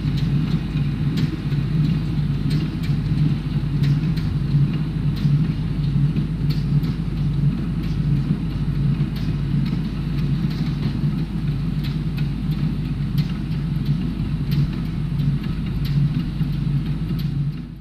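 Tractor engine running steadily while baling hay, a constant low drone with faint, irregular ticks over it.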